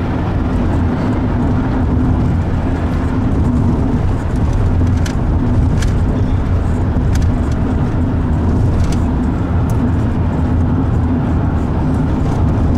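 Steady engine and road noise inside a moving car's cabin, a continuous low drone, with a few light clicks around the middle.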